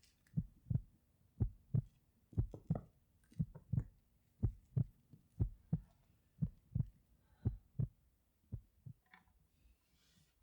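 Heartbeat sound effect: low double thumps, about one beat a second, growing fainter and fading out near the end.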